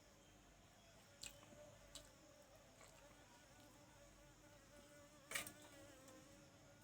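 Faint insect buzzing, a thin steady hum that wavers slightly in pitch, with a few sharp clicks; the loudest click comes about five seconds in.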